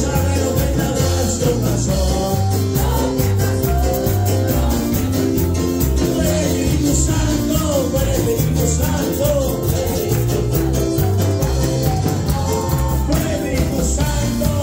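Live worship band playing a song: drum kit keeping a steady beat, electric bass and keyboard, with a male lead singer and women's backing voices singing the melody.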